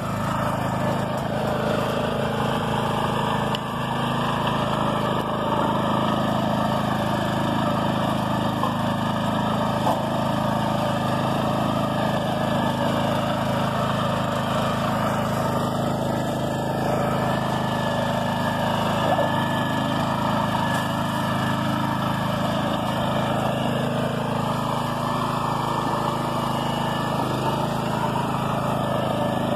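BCS walk-behind tractor's small engine running steadily, an even drone that holds the same pace throughout.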